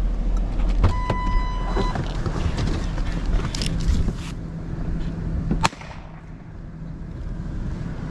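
Pickup truck engine idling, then fading, as the door is opened. A click comes about a second in, followed by a chime ringing for about a second. After that, wind and handling noise on the microphone, and a sharp click a little before the end, after which the sound drops off suddenly.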